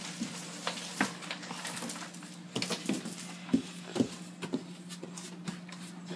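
Irregular light taps and knocks from children moving about a small room, over a steady low hum.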